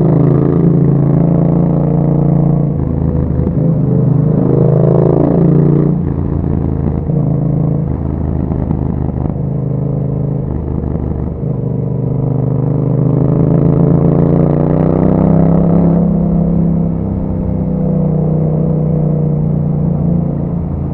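2021 Yamaha MT-07's 689 cc parallel-twin engine running through an Akrapovic exhaust with a dB killer fitted, while the bike is ridden. The revs rise and fall several times, with the biggest climbs about four seconds in and again from about twelve to sixteen seconds in.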